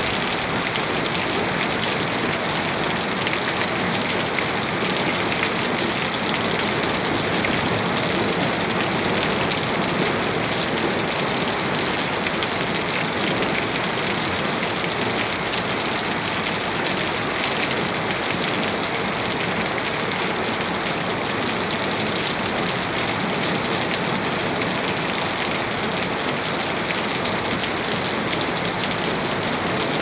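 Rain falling steadily, an even hiss that does not let up.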